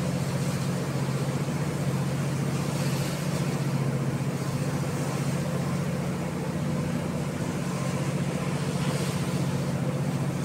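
A ship's engine drone, steady and low, heard aboard the vessel while under way, with a hiss of wind and sea over it.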